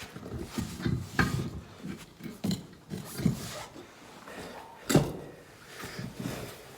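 Heavy skid steer tire being levered onto its wheel hub with a pry bar: irregular clunks and scrapes of metal and rubber, with the loudest sharp knock about five seconds in.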